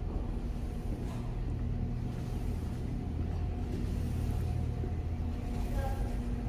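Steady low rumble with a faint, even mechanical hum.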